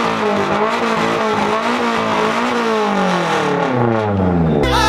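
Car engine revved hard, its pitch rising and falling about once a second, then dropping near the end, heard from inside the car. Music cuts in suddenly just before the end.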